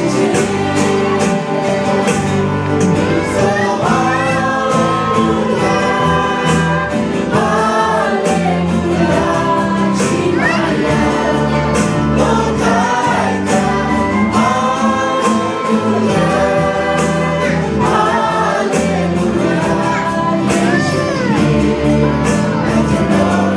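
Live praise-and-worship band: several men and women singing together into microphones over acoustic guitar and keyboard, amplified through the hall's sound system.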